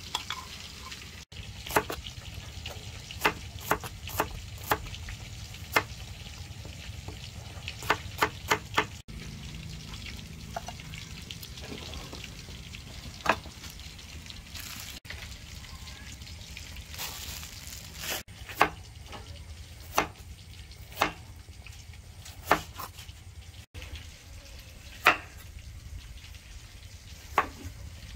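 Kitchen knife chopping vegetables on a wooden cutting board: scattered sharp knocks, sometimes a quick run of several, over a steady low background hiss.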